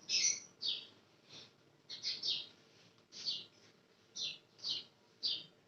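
A bird chirping: a series of short, high chirps, each dropping in pitch, about one or two a second.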